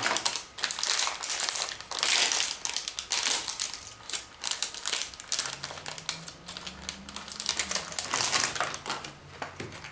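Foil HeroClix booster pack being torn open and crumpled by hand: a rapid, irregular string of sharp crinkling crackles.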